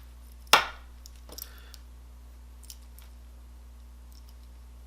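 Small screwdriver prying at a diecast metal toy body: one sharp click about half a second in, then a few faint clicks and scrapes.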